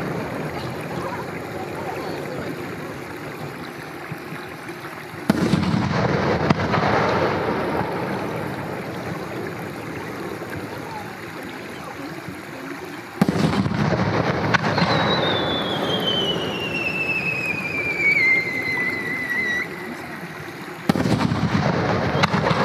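Aerial firework shells bursting three times, each a sudden loud boom followed by a long rolling echo that dies away. Between the second and third bursts a high whistle glides steadily down in pitch for about five seconds.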